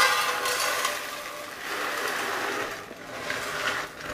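Coarse gravel pouring from a plastic scoop into an empty bonsai pot to lay a drainage layer: a steady rattling hiss of many small stones, which eases briefly near three seconds and then goes on.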